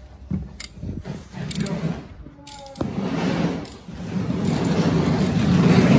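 Hard casters of a mechanic's creeper rolling over a concrete garage floor. After a few scattered knocks and clicks, a rumble starts about three seconds in and grows louder, with faint squeaks near the end.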